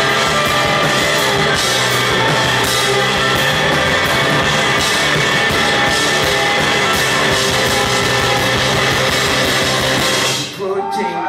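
Live rock band playing a loud instrumental passage on electric guitars and drum kit. About ten seconds in the full band suddenly drops out and a male voice starts singing over a thinner accompaniment.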